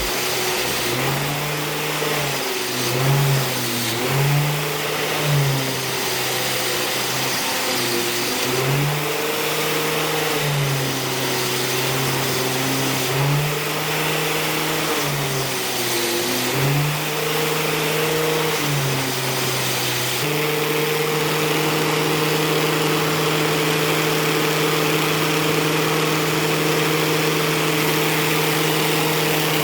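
Electric motor of a power tool running with a steady hiss, its pitch dropping and recovering again and again during the first two-thirds as it is loaded, then holding steady.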